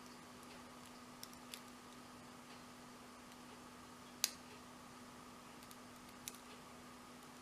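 Lock pick and tension wrench working the pin stack of a 40 mm Abus My Sport padlock during single pin picking: a few faint scattered clicks and one sharper click about four seconds in, over a steady low hum.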